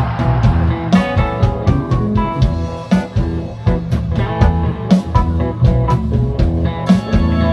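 Live band playing an instrumental passage on electric guitar, electric bass and drum kit, with a steady beat on the drums.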